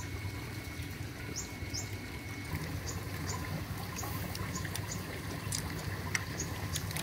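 Asian swamp eels feeding at the surface of a farm tank: scattered light clicks and pops as they snap at the feed, over a steady low hum and trickle of water. Short high chirps repeat every half second or so.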